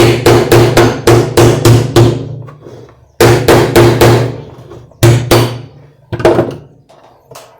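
Hammer blows on the drum support and shaft of a Consul CWH12 washing machine, each with a brief metallic ring. They come in quick runs of about four strikes a second, with pauses between runs, and grow fewer and softer near the end. The hammering is knocking the rotten drum support loose to get at the bearings.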